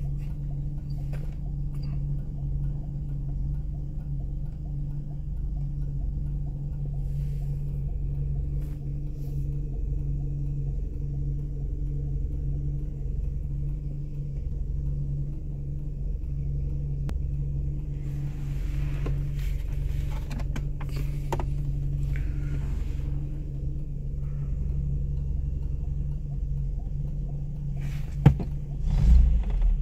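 Datsun Sakura's engine idling steadily, heard from inside the cabin, with a couple of louder surges near the end as the engine is revved.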